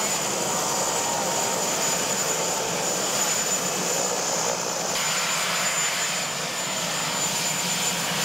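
VH-3D Sea King helicopter (Marine One) running on the ground with its main rotor turning: a steady high turbine whine over continuous engine and rotor noise.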